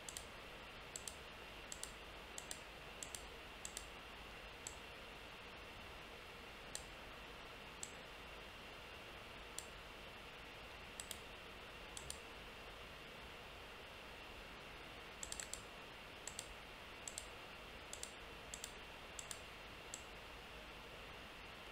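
Computer mouse clicking at irregular intervals, the short sharp clicks often coming in quick pairs and bunching together about two-thirds of the way through. Under them runs a faint steady hiss.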